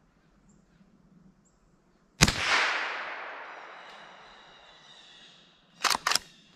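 A single .22 rimfire shot from a Henry H001 lever-action rifle about two seconds in, its report echoing and dying away over about three seconds. Near the end come two quick sharp clacks of the lever being worked to eject the spent case and chamber the next round.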